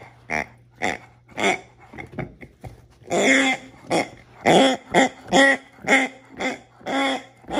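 Latex Grunting Piggy dog toy squeezed over and over in a Great Dane's mouth, giving short pitched oink-like grunts about two a second. The grunts are fainter for the first three seconds and louder after.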